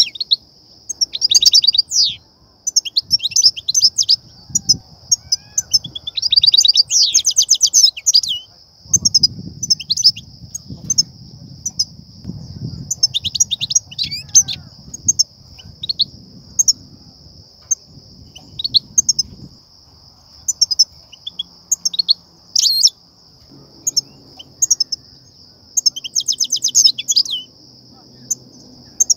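European goldfinches singing: bursts of rapid, tinkling twitters and trills in phrases a second or two long, with short pauses between them, over a steady high-pitched hiss.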